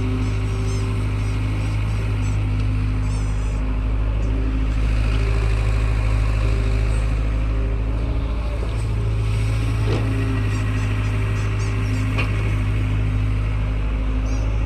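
Excavator's diesel engine running steadily, a continuous low drone with no pauses.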